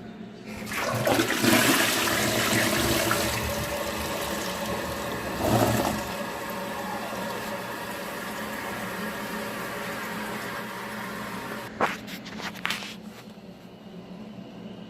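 TOTO toilet flushing: a click, then a loud rush of water about a second in that surges again around five seconds in. After that comes a steadier, quieter run of water with a couple of clicks near the end.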